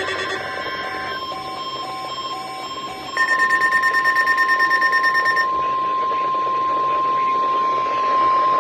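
NOAA Weather Radio warning alarm tone: a steady single tone of about 1 kHz, the weekly test of the alert signal. About three seconds in it grows louder, and a higher pulsing tone joins it for a couple of seconds. Fainter short beeps repeat at an even pace during the first three seconds.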